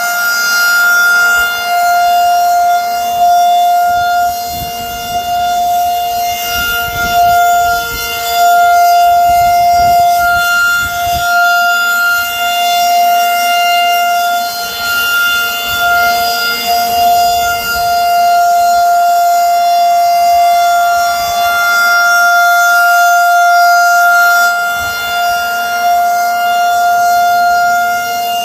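Federal Signal 2001-130 rotating tornado siren sounding a steady alert tone: one held pitch that swells and fades in loudness as the rotating head sweeps past.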